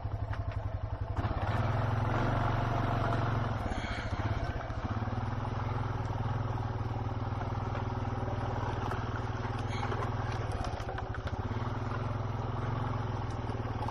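Honda ATV engine running at a steady throttle while the quad is ridden along, with faint clattering; it picks up a little about a second in.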